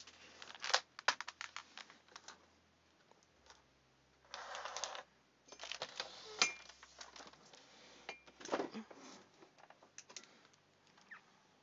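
Scattered clicks and taps of a computer keyboard and mouse at a drawing desk, with two short rustling noises about four and six seconds in.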